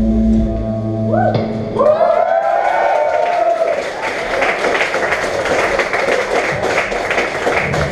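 Live melodic hardcore band: a sustained chord cuts off about a second in, then guitar notes bending and sliding in pitch, followed by a dense, noisy wash of full-band sound.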